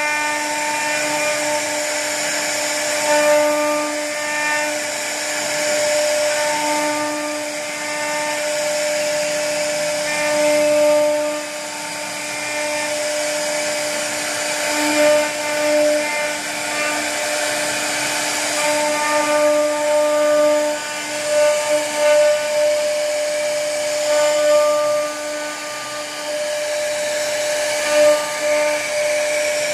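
CNC router spindle cutting wood: a steady pitched whine over a hiss of cutting. Its loudness swells and dips as the bit moves through the carving.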